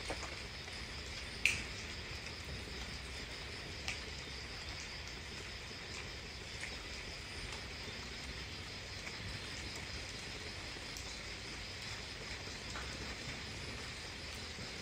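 Crickets chirping steadily in a continuous high trill, with a few sharp clicks over it, the loudest about a second and a half in.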